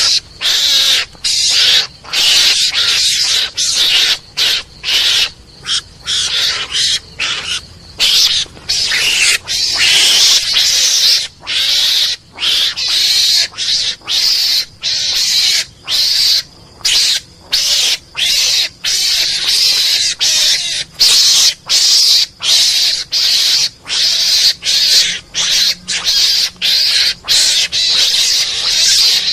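Garangan (mongoose) lure call playing on a loop: a rapid series of harsh, hissing calls broken by short gaps, about one or two a second.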